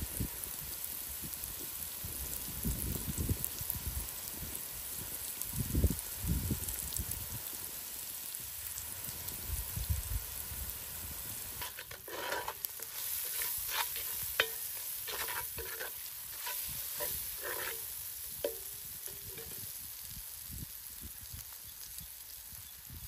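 Stirring in a cooking pot: a utensil scrapes and knocks against the pot in a run of short strokes through the second half, some with a brief metallic ring. A steady high hiss runs underneath, and dull low thumps come in the first half.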